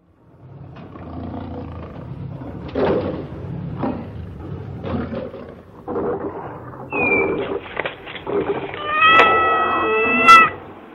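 Cat meowing: soft rustling and small sounds at first, then one long drawn-out meow about nine seconds in.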